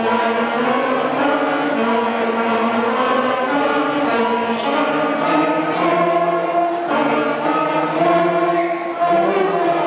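A school wind band of flutes, clarinets and saxophones starts playing at once, holding long sustained chords that move slowly from one to the next.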